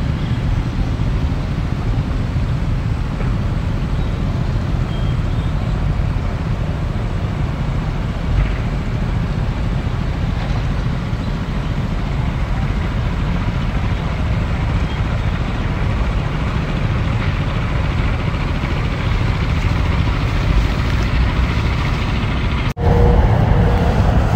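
Tracked excavator's diesel engine running steadily with a low rumble while the machine works. It cuts out for an instant near the end and comes back a little louder.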